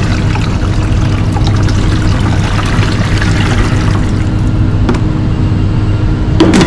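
Cold water poured from a plastic jug into the water inlet of a commercial filter coffee brewer, splashing and trickling for about four seconds. A click follows, then a sharp knock near the end.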